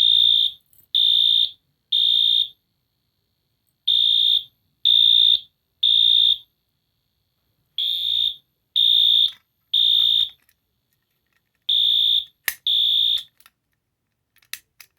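Wheelock AS horn strobe sounding its high-pitched electronic horn in the temporal-three evacuation pattern: three half-second beeps about a second apart, a pause, then repeated. It is set off by a pulled fire alarm pull station. The alarm stops after the second beep of the fourth round, with a sharp click between those last two beeps.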